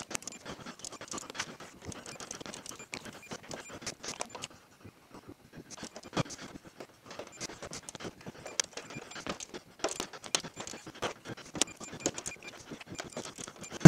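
Hand torque wrench ratcheting in quick runs of sharp metallic clicks as the aluminium cover bolts of a Chevrolet Bolt EV battery pack are drawn down on their first torque pass to 22 inch-pounds. There is a short pause about five seconds in.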